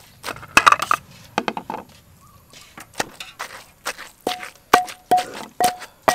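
Wooden pestle pounding food in a clay mortar: irregular thuds with a pause near the middle. Several strikes in the second half leave a short ringing note from the bowl.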